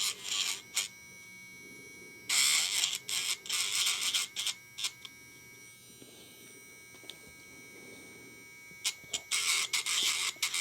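Electric pet nail grinder running with a faint steady motor whine, breaking into loud, high, scratchy grinding each time it is pressed against the dog's nail. There are three spells of grinding: one at the start, one of a couple of seconds about two seconds in, and one near the end.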